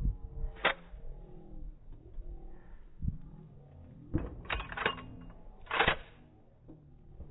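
Sharp mechanical clicks and clacks from a Glock pistol being handled: one early, then several close together and a longer clack near the end.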